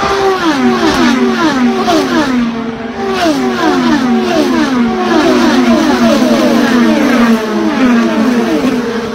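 A field of open-wheel race cars passing at full speed one after another, each engine's high note dropping sharply in pitch as it goes by, about two passes a second.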